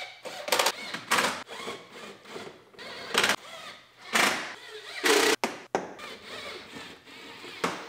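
Plastic push pins and screws being fitted into a plastic front wheel liner: a series of separate sharp clicks, snaps and plastic rustles, the loudest about five seconds in.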